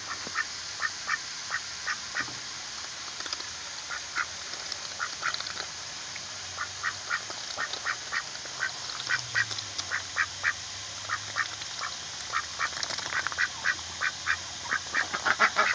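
White domestic ducks dabbling in mud and giving a run of short quacks, two or three a second, that come thicker near the end.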